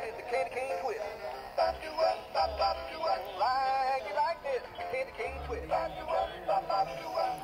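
An animated Christmas toy playing a recorded song, a singing voice over music.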